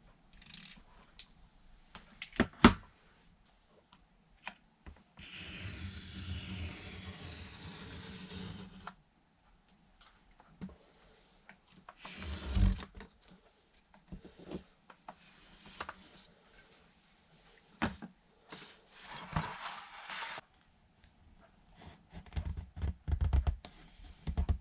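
A knife scraping through sheet material on a cutting mat, with clicks and knocks as wooden parts and tools are picked up and set down. One steady scrape lasts about four seconds a few seconds in, with shorter scrapes later and a quick cluster of taps near the end.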